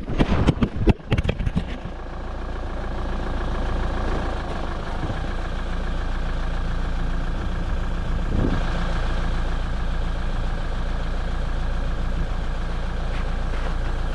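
A few sharp knocks and clicks, then a motor vehicle's engine running steadily with an even hum.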